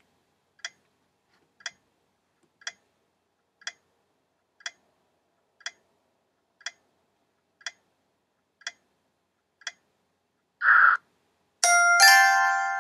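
Countdown timer sound effect ticking once a second for ten ticks, then a short noisy burst and a ringing chime that fades out as time runs out.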